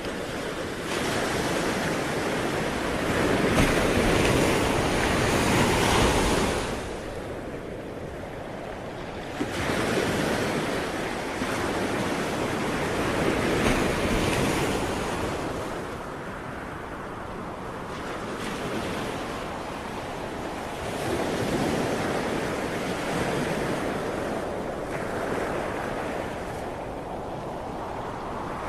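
Ocean waves breaking and washing onto shore in slow surges that swell and ebb every several seconds, with wind noise on the microphone.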